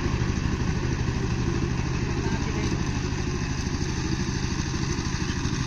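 Power tiller's single-cylinder diesel engine running steadily under load with an even, rapid chug, driving its rotary tiller blades through dry soil.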